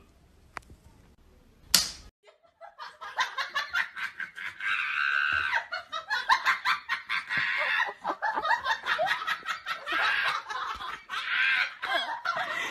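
Wooden spoon rapidly knocking and rattling against metal fence bars as two dogs tug at it from either side, with high-pitched laughter throughout.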